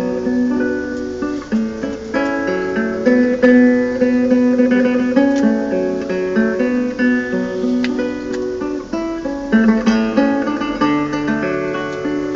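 Instrumental acoustic guitar music, a busy run of plucked notes and chords without singing.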